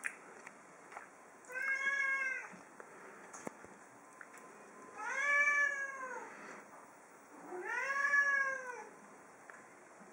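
Domestic cat meowing three times, each call about a second long, rising then falling in pitch.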